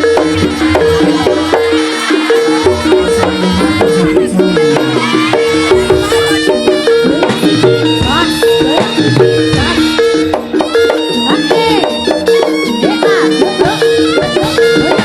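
Loud music with a short melody repeating steadily, with voices over it.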